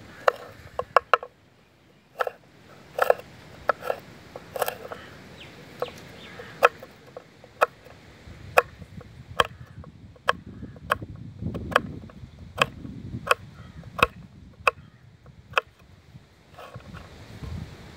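Knife chopping green tamarind pods on a wooden cutting board: a series of sharp knocks, irregular, about one or two a second.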